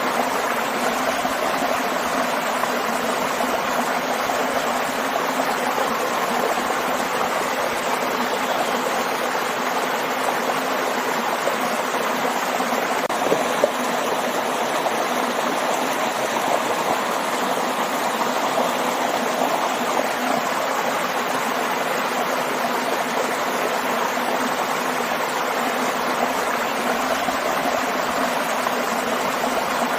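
Steady rushing of a stream and waterfall, water pouring and splashing continuously with no change in level. A small splash or click stands out briefly about halfway through.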